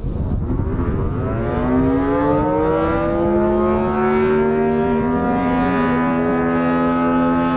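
Motor-driven outdoor warning siren winding up: its pitch glides upward over the first few seconds, then holds a steady wail, with a second steady tone joining about three seconds in.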